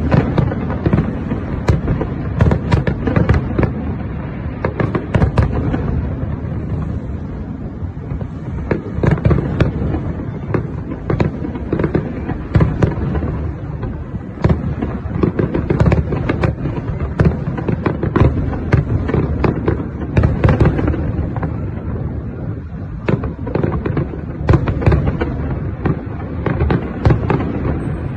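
Aerial fireworks display: shells bursting in quick succession, many bangs overlapping one another.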